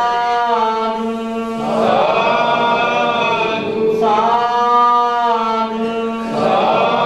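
Buddhist devotional chanting led by a monk at a microphone, sung on long sustained vowels in phrases about two seconds long.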